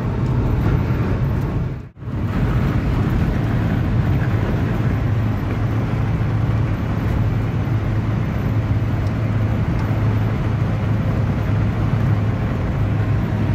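Cabin noise of a Fiat Fiorino van under way: a steady engine hum with tyre and road noise. It cuts out briefly about two seconds in.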